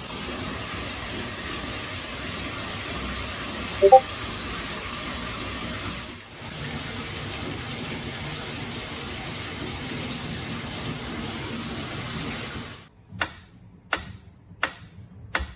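A steady hiss runs for most of the stretch, with a short sharp blip about four seconds in. It stops and gives way to a pyramid wind-up metronome ticking evenly, about one and a half ticks a second, four ticks in all.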